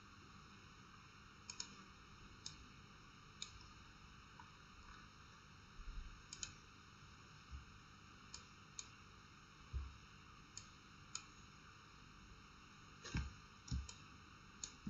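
Computer mouse clicking now and then, about a dozen short clicks, some in quick pairs, over a faint steady hiss, with a couple of dull low knocks near the end.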